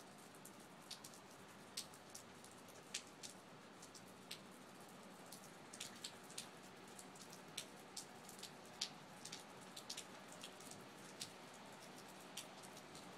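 Rain falling, with drops tapping close by in irregular sharp ticks, several a second, over a faint steady hiss.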